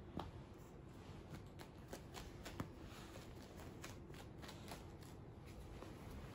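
A cat's claws and paws scratching and scuffing at a sock and the wooden floor as it grapples with and kicks at a foot: a quick, irregular run of faint light ticks and rustles.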